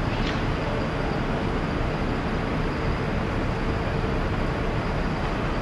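Steady city traffic noise: an even rumble and hiss with a faint steady hum, no single passing vehicle standing out.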